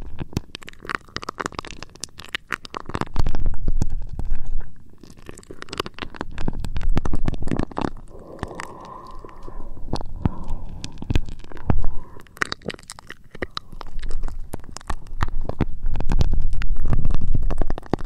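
Close-up scratching and rubbing right on an ASMR microphone, a dense crackle of small clicks with low rumbling surges that swell several times, the longest near the end.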